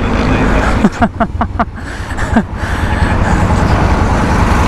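Motorcycle engine running steadily, growing louder and denser from about three seconds in. A quick run of short falling chirps comes about a second in.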